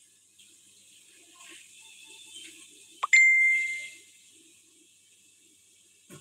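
A single bright ding about three seconds in: a sharp strike followed by one clear ringing tone that dies away within about a second, over faint room noise.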